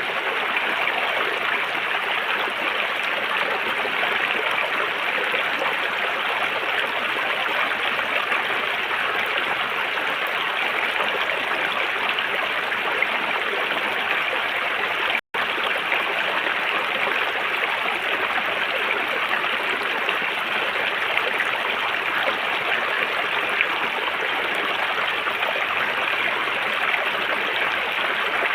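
River water flowing steadily, a constant even rush, with a split-second dropout about halfway through.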